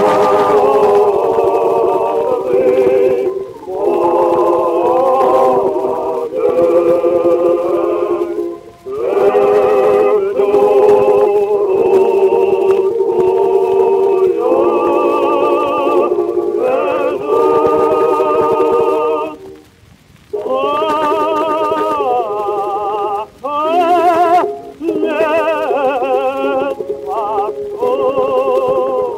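A 1918 acoustic-era 78 rpm record of a Russian vocal quartet singing a folk song, the voices wavering with vibrato in phrases broken by two short pauses. The sound is thin and muffled, with no high end.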